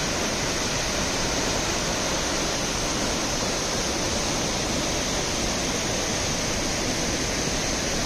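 Nauyaca Waterfalls' tall twin cascades pouring onto rocks: a steady, unbroken rush of falling water.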